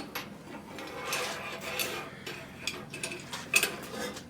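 Metal parts clinking and scraping against each other, a string of light knocks with the sharpest one about three and a half seconds in.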